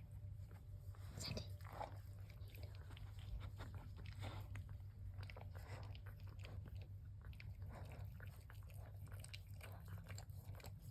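Faint clicking and smacking from young red cocker spaniel puppies moving and mouthing, over a steady low hum.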